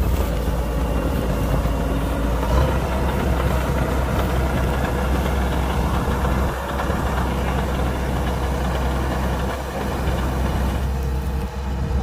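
Kubota combine harvester running steadily: a constant low diesel engine drone under a broad mechanical rush. The higher rush drops away near the end.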